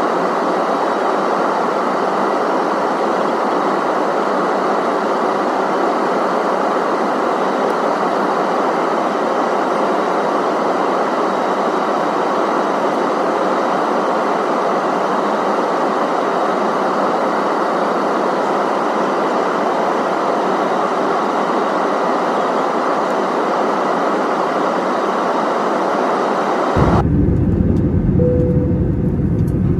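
Steady rushing cabin noise of an Airbus A320neo airliner in flight: airflow and engine noise heard inside the cabin. Near the end the noise turns suddenly deeper and a short single tone sounds.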